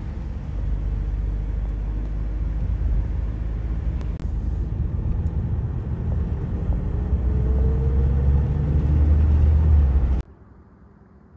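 Steady low engine and road rumble of a car driving, heard from a moving vehicle, building over the last few seconds with a faint rising engine tone as it speeds up, then cutting off suddenly near the end.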